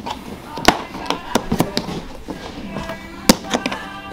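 Hard plastic carrying case of a Wagner Flexio paint sprayer being handled and its latches snapped open: a series of sharp plastic clicks and knocks, the loudest about two-thirds of a second in and about three seconds in, with faint music underneath.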